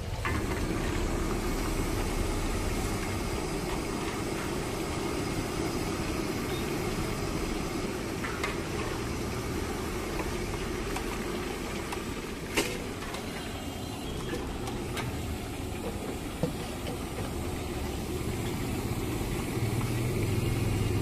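Chicken pieces deep-frying in a wok of hot oil, a steady sizzle over a low, engine-like rumble. A single sharp metal clink comes about twelve and a half seconds in.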